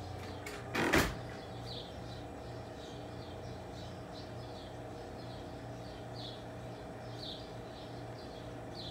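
A small bird chirping, one short high call repeated about every half second, over a steady low hum. About a second in there is one brief loud thump.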